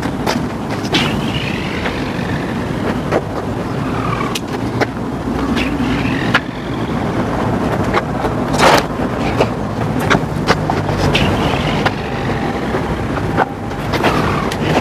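Wind buffeting an action-camera microphone: a steady rushing noise with sharp crackles every second or so.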